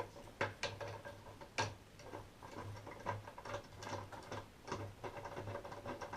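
Ratchet socket wrench clicking in irregular single clicks as the loosened 7/16 bolt holding a washing machine's top agitator is turned out.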